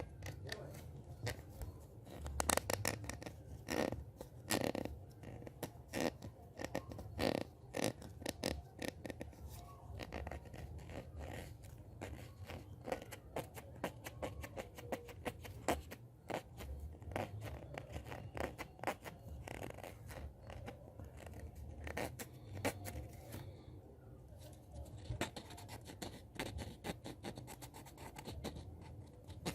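Hand sounds for ASMR: hands rubbing, scratching and tapping, giving a dense, irregular stream of soft scratches and crackling clicks.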